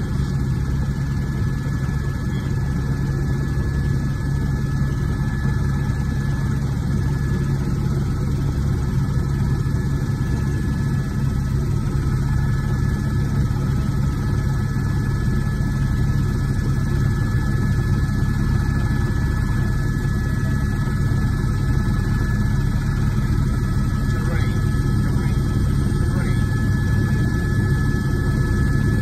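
An Airbus AS350 Ecureuil helicopter in cruise flight, heard from inside the cockpit: the steady drone of the main rotor and single turbine engine. Thin, steady whining tones sit above the drone.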